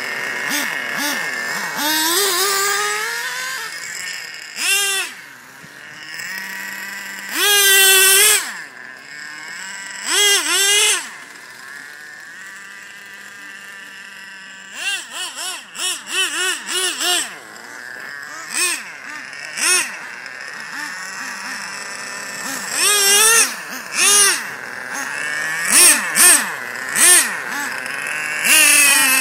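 Nitro two-stroke engines of Traxxas Jato RC cars racing, one a modified TRX 3.3 and one an O.S. Speed .12 TZ. They give a high-pitched revving that swoops up and down in pitch as the cars speed past, loudest around eight and ten seconds in and in several quick passes near the end, with a lower steady engine note between the passes.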